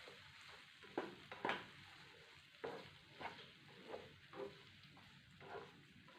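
Potato pieces frying in oil in a pan, a faint sizzle, while a utensil stirs them, scraping against the pan in repeated short strokes.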